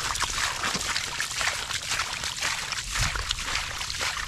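Shallow water sloshing and splashing: a steady run of small, irregular splashes.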